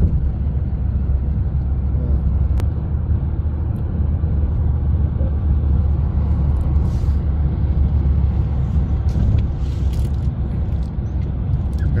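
Steady low road rumble and engine drone of a car moving at highway speed, heard inside the cabin.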